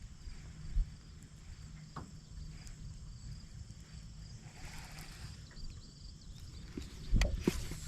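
Pond-side outdoor ambience: a faint, steady high insect trill over a low, uneven rumble, with a few sharp knocks about seven seconds in.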